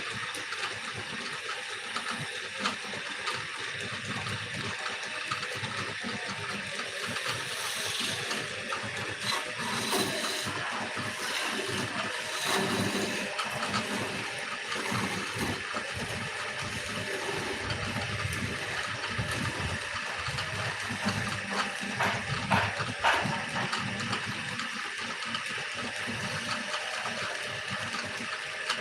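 Wood lathe running while a turning tool cuts the spinning wood: a steady hissing scrape with a few short knocks in the middle and later on.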